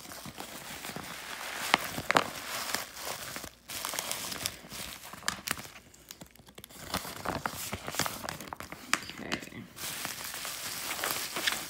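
Plastic mailer bag and bubble wrap crinkling and rustling as a wrapped package is pulled out and handled, with scattered sharp crackles.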